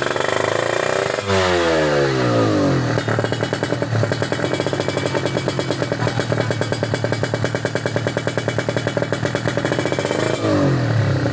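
Tuned Kawasaki Ninja two-stroke single-cylinder engine, bored to 155, on a Fantera racing exhaust, being blipped. A sharp rev about a second in falls away, then several seconds of choppy, pulsing low-speed running, and another short rev near the end.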